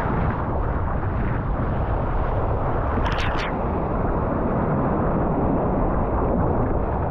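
Strong wind buffeting the action camera's microphone over rushing surf as the kayak rides a wave, with a brief splash of water about three seconds in.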